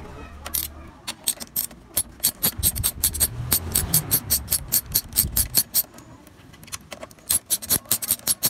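Socket ratchet wrench clicking in quick, even strokes, about four or five a second, as it loosens a 10mm motorcycle fuel-tank mounting bolt. The clicking stops for about a second and a half past the middle, then starts again near the end.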